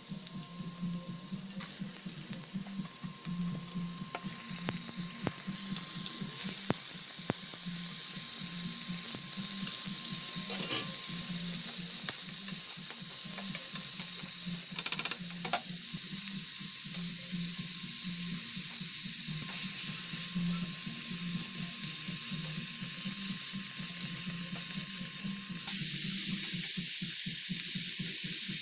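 Diced vegetables and ground pork frying in oil in a nonstick pan: a steady sizzle that gets louder about two seconds in, with a spatula stirring through the food.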